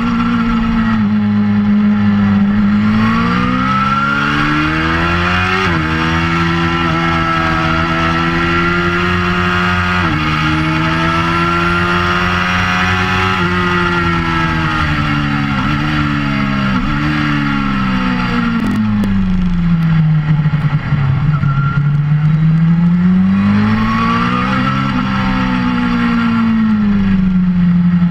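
Inline four-cylinder engine of a 2004 Suzuki GSX-R600 through a Werx exhaust, heard from the bike while riding hard on track. It revs up through the gears, its pitch climbing and dropping sharply at each quick upshift. About two-thirds of the way in, the revs fall away in a long slide as the bike slows for a corner, with a single knock, then the engine pulls up again.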